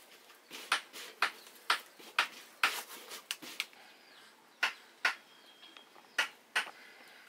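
A string of about a dozen short, sharp clicks or snaps at irregular intervals, some coming in quick pairs, with a gap of about a second in the middle.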